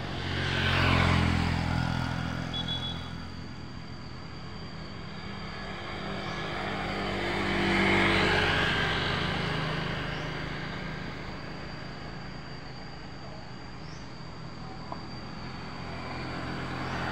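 Motor vehicles passing on a nearby road. One swells up and fades about a second in, and another around eight seconds in, over a low steady traffic hum.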